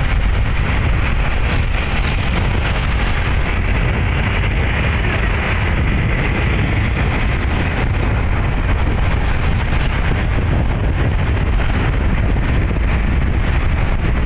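Road vehicle running steadily at speed, with rushing wind on the microphone. No horn is sounding.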